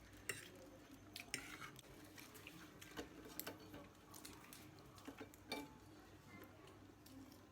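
Faint, scattered clicks and taps of eating utensils against dishes, about five sharp ones over several seconds, over a low room hum.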